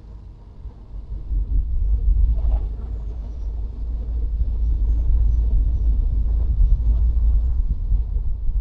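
Low rumble of a car driving on the road, growing louder about a second in and then holding steady.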